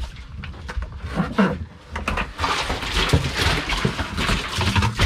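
A bucket of snapper tipped into a boat's fish box: wet fish sliding, slapping and thudding against the plastic, with a denser rush of sliding and thumps in the second half.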